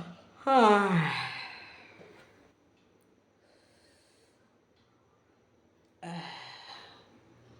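A person yawning aloud: a voiced yawn that slides down in pitch and trails off into a long breathy exhale. A second, fainter breathy yawn starts near the end.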